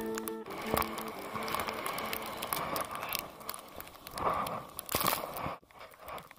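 Snowboard riding through deep powder snow: a steady rushing hiss of snow against the board, with scattered clicks and two louder surges about four and five seconds in, then a sudden near-silent drop near the end. A guitar tune fades out in the first half second.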